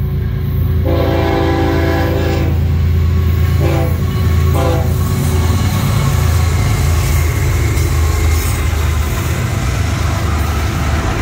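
Freight-train locomotive horn: one long blast about a second in, then two short toots a couple of seconds later. Two GE ES44C4 diesel locomotives pass close by with a loud, steady, low engine drone, which gives way to freight cars rumbling over the rails near the end.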